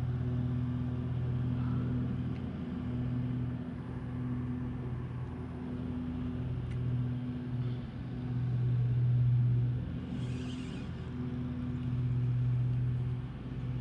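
Steady low motor hum that swells and fades every couple of seconds, with a brief hiss about ten seconds in.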